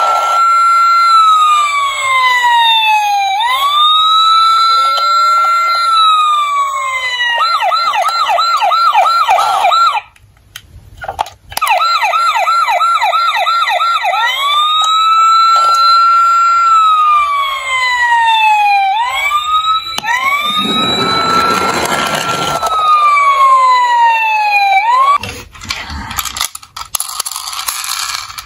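Toy police car's electronic siren sound effect playing through its small built-in speaker: a repeating wail that rises quickly and slides down over a couple of seconds, switching twice to a fast yelp of about four quick sweeps a second. It breaks off for about a second near the middle and starts again, with a noisy rushing burst under the wail about two-thirds through.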